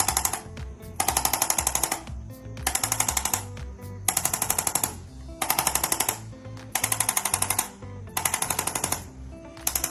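Handheld chiropractic adjusting instrument firing in repeated short bursts of rapid taps, about seven bursts, each lasting under a second, against the neck and upper back. Background music plays underneath.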